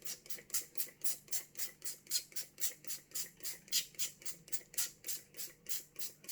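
Frylight pump-action cooking oil spray being pumped over a tray of chips: a quick run of short spritzing hisses, about four a second.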